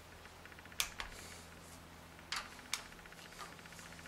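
Torque wrench working the cam gear bolts: a fast ratchet ticking, with a few sharp clicks as the bolts are brought to 15 N·m.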